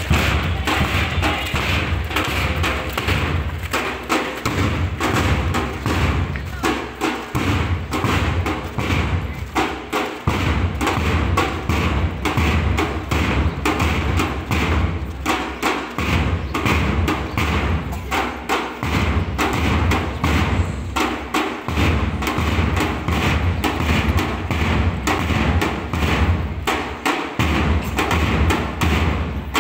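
Marching band's bass drums beating a steady march rhythm of evenly spaced strikes.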